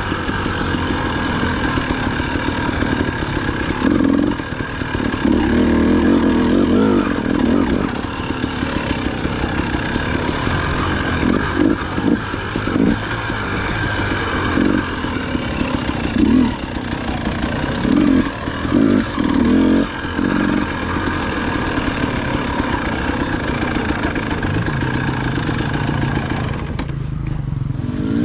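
Dirt bike engine running under constantly changing throttle on a trail ride, surging again and again as the throttle is opened and closed. Near the end it eases off as the bike slows.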